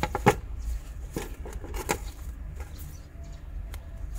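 Handling noises from unpacking a potted succulent: a few sharp knocks and rustles, the loudest about a third of a second in, over a steady low hum.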